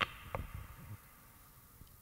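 A couple of soft knocks and light footsteps at a wooden lectern as readers change places, over low room tone; the knocks fall in the first half second and it is quieter after about a second.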